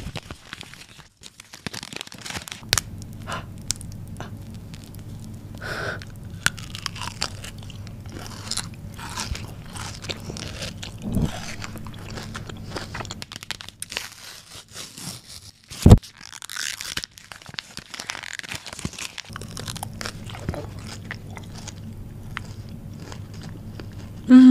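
Crunching and chewing of a Dubai-style knafeh chocolate bar with a crisp shredded-pastry filling: irregular crackles and clicks, with one louder sharp crack about two-thirds of the way through.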